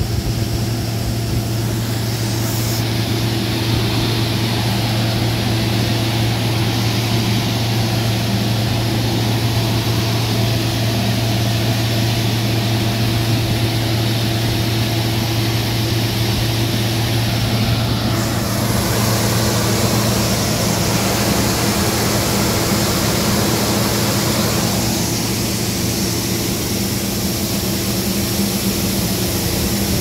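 Farm machinery running steadily during grain unloading: a combine harvester and haul-out tractor make a constant low drone while the combine's auger pours soybeans into the bin, with a steady hiss over it.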